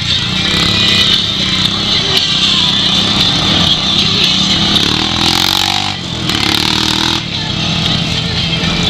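Honda Pioneer 500 side-by-side's single-cylinder engine running as it drives along a rough dirt trail, revving up for a couple of seconds about five seconds in.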